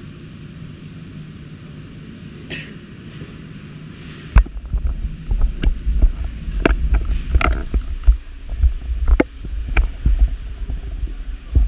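A steady low hum at first; about four seconds in, loud low rumbling with irregular knocks and rubbing begins as the wide-angle camera is picked up and carried, its body and microphone being handled and bumped.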